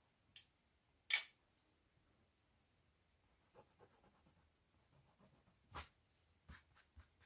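Faint pencil and eraser work on a stretched canvas: a few short, sharp taps and scrapes, the loudest about a second in and a quick cluster near the end, with soft rubbing in between.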